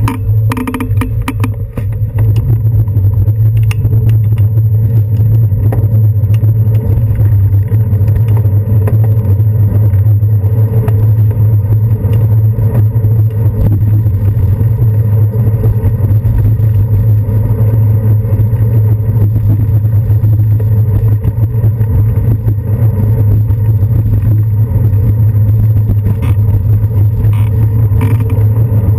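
Steady, loud low rumble of wind and road vibration on a handlebar-mounted GoPro Hero 2 as a bicycle rides along city streets, with a few rattles in the first two seconds.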